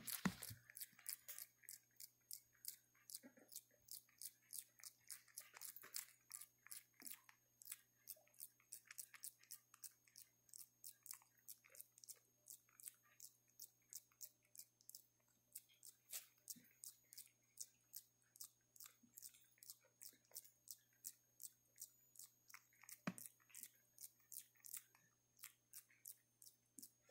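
A macaque chewing close to the microphone: faint, quick wet clicks, about three a second, over a low steady hum.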